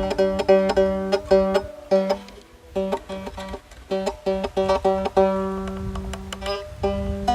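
Strings of a handmade rabeca plucked again and again while it is tuned by ear, with a short pause a little after two seconds in.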